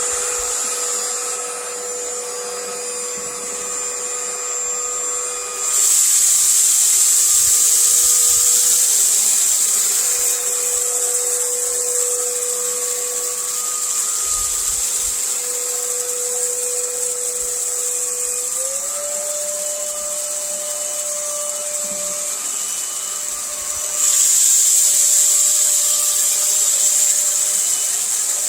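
Cordless stick vacuum cleaner running: a steady motor whine that steps up slightly in pitch about two-thirds of the way through, over a rush of air that grows louder twice, for a few seconds after about six seconds in and again near the end.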